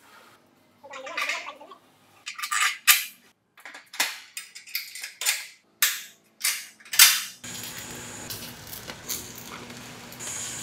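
A run of sharp metal clanks and taps as steel brackets and steering parts are fitted onto a steel tube frame. About seven seconds in, a welding arc starts and gives a steady crackling hiss with a low hum.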